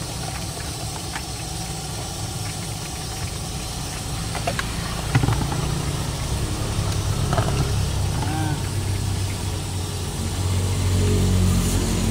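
Steady low rumble of a gas wok burner, growing louder about five seconds in, with a few light knocks and clicks from a plastic bowl and fish pieces being handled.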